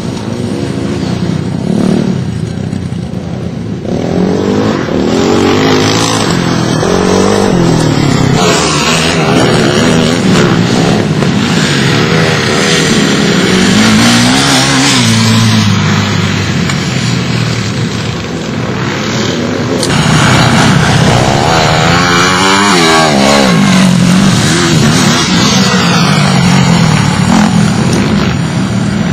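Pit bike engines revving hard as the bikes ride the dirt track, their pitch rising and falling repeatedly as they accelerate and back off, with more than one bike heard at once at times.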